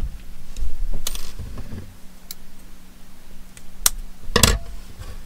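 Small tools handled on a wooden tabletop: a few separate clicks and knocks as needle-nose pliers and metal needles are set down and picked up, the loudest knock about four and a half seconds in.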